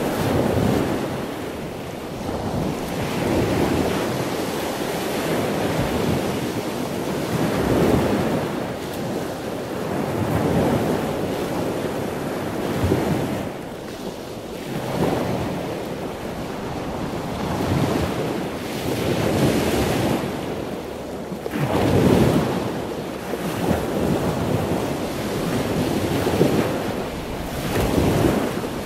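Wind buffeting an outdoor microphone: a loud rushing noise that rises and falls in uneven gusts.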